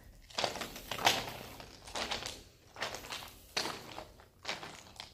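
Footsteps crunching on a gravel floor at a steady walking pace, a step a little under every second.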